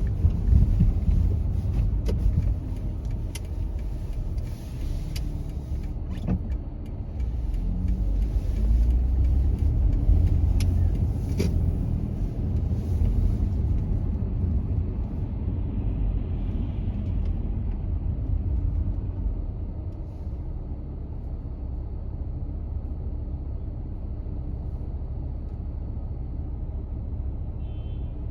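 A car driving, heard as steady low road and engine rumble with a few sharp clicks or knocks in the first half. A high hiss in the noise drops away about halfway through, leaving a quieter, steadier rumble.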